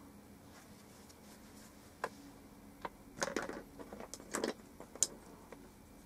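Handling noise: a few light clicks and two short rattling clatters of small hard objects being moved about, loudest around three and four and a half seconds in, with a sharp click about five seconds in.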